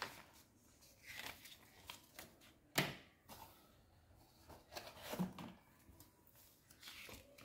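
Faint rustling and handling of a paper instruction manual and cardboard packaging, with a few light taps and ticks; the sharpest tick comes a little under three seconds in.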